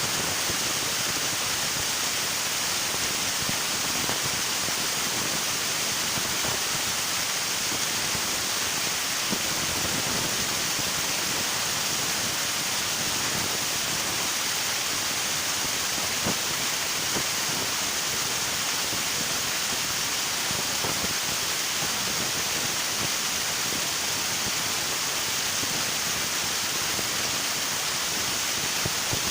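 River water rushing and splashing in a steady, even flow, with no change in level.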